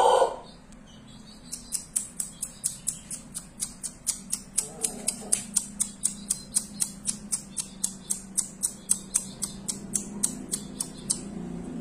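The end of a Pelung rooster's long crow, cut off a moment in. Then a steady run of sharp, high-pitched ticks, about four or five a second, goes on until near the end.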